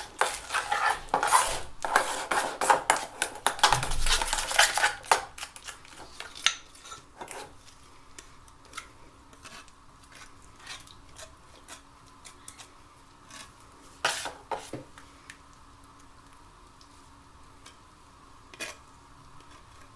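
Spatula scraping and clinking against a container while mixing and spreading an alabaster (gypsum plaster) and putty mix, busy for about the first five seconds, then only occasional taps and scrapes.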